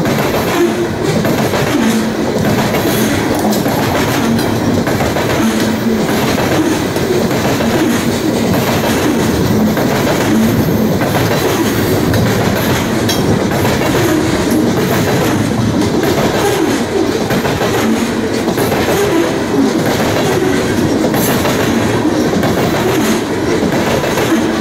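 Loaded coal hopper cars of a freight train rolling past at speed, steel wheels clattering over the rail joints in a steady, unbroken run, with wind buffeting the microphone.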